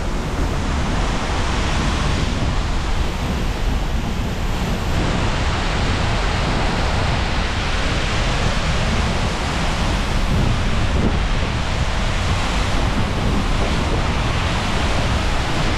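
Steady rushing of a tall waterfall close by, with wind buffeting the microphone in uneven low rumbles.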